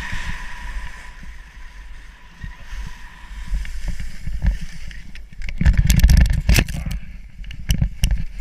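Skis running through deep, cut-up snow with wind rumbling on the action camera's microphone, then a loud tumble about two-thirds of the way through: a rapid run of crunching impacts as the skier falls into the snow, with a few last knocks just before the end.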